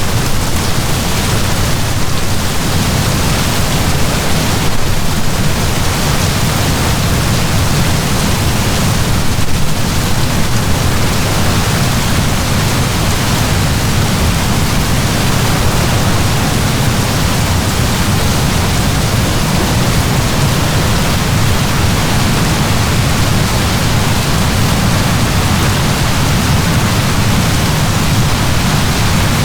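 Heavy downpour of rain, a steady, dense hiss with a low rumble beneath it.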